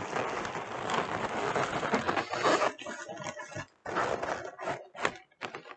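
Air-filled latex and foil balloons rubbing against each other and against hands as the arrangement is pressed and adjusted. The rubbing is dense and continuous for about the first two and a half seconds, then comes in shorter broken bursts.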